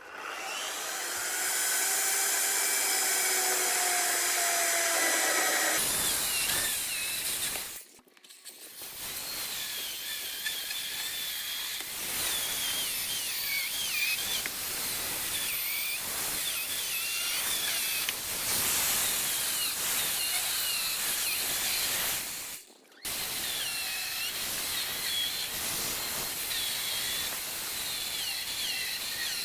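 Chainsaw fitted with a new chain, running and cutting through logs, its pitch wavering as it works through the wood. The sound cuts out briefly twice.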